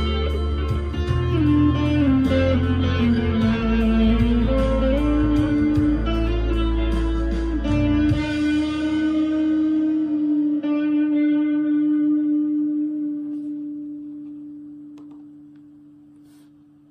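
Harley Benton SC Custom II electric guitar played through an amp's crunch channel: picked single-note lines and riffs over the low strings. About eight seconds in it settles on a held final note that rings on and slowly fades out.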